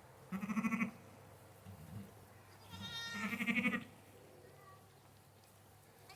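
A ewe bleating twice, low and wavering, as she tends her newborn lamb. The second bleat, about three seconds in, starts higher and is the longer of the two.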